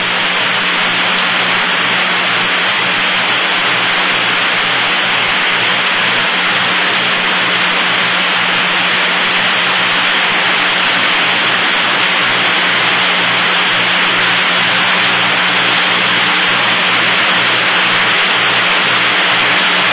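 Steady hiss of an open radio communications channel, with a low steady hum underneath and no voices.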